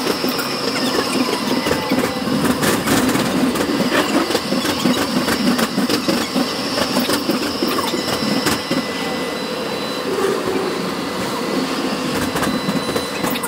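Tram running along its rails, heard from inside the car: a steady rumble of wheels and running gear, with scattered clicks and clatter from the wheels on the track and a faint high steady whine.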